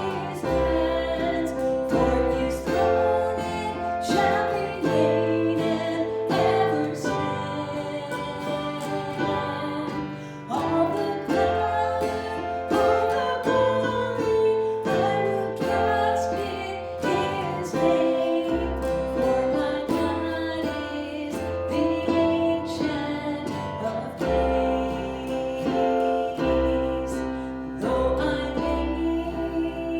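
Music: a song with singing over guitar and a steady bass line.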